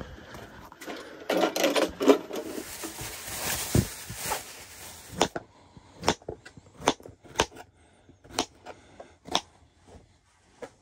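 Rustling and clattering of gear being handled, then a small paring knife slicing yellow squash and zucchini on a plastic cutting board: a string of sharp knocks, one or two a second, as the blade hits the board.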